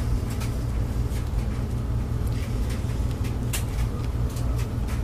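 Steady low rumble, with scattered light clicks and taps from handling an 18-inch woofer while its paper gaskets are lined up on the frame.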